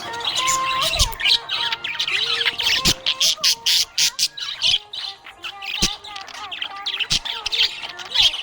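Budgerigar chirping and chattering in rapid, busy bursts of high notes and sharp clicks, over a quiet background melody.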